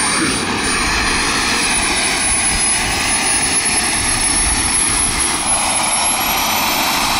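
Miniature model jet turbine running on the ground, mounted on a foam RC B-2 bomber: a steady loud rush with a thin high whine that slowly rises in pitch.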